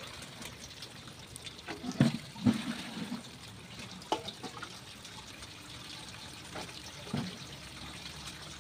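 Water running from a pipe outlet into a metal basin and bucket, a steady splashing and trickling. A few sharp knocks of pots and buckets being handled cut through it, the loudest two about two seconds in.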